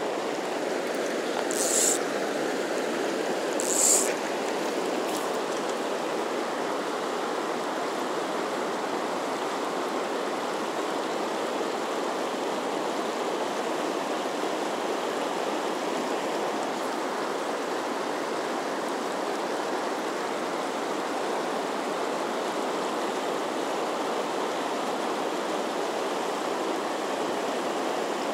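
Firehole River's fast, riffled current flowing steadily past the bank, a constant water noise. Near the start, two short, sharp hisses about two seconds apart stand out as the loudest moments.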